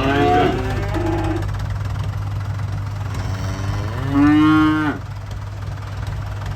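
Calves bawling: a call right at the start, then a longer, louder moo about three seconds in. A steady low hum runs underneath.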